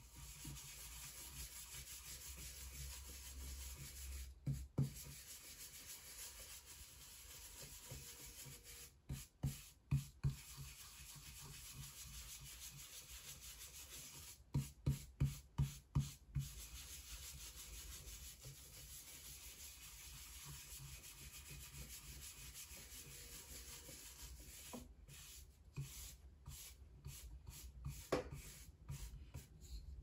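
A brush scrubbing wet pigment across a carved wooden printing block: a steady soft rubbing hiss, broken by several runs of quicker, louder strokes, about six in a row around halfway through.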